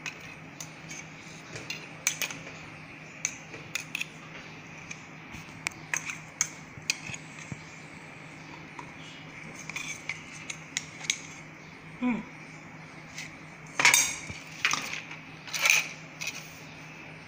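A steel spoon scraping and tapping against steel bowls and a mixer-grinder jar while dry peanut chutney is scooped out: scattered light clinks, with a few louder clattering knocks about fourteen and sixteen seconds in, over a faint steady hum.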